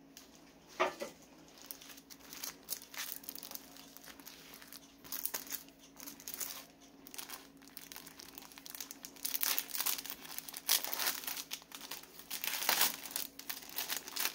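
Clear plastic bag crinkling and rustling as a pack of paper labels is handled and slid out of it. The crackles are irregular and come thicker and louder in the second half.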